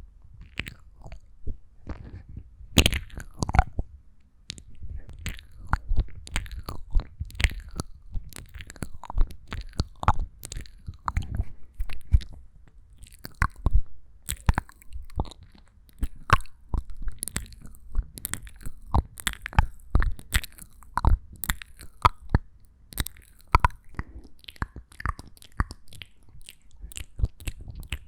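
Close-miked ASMR mouth sounds: a dense, irregular run of wet clicks, smacks and tongue pops, several a second.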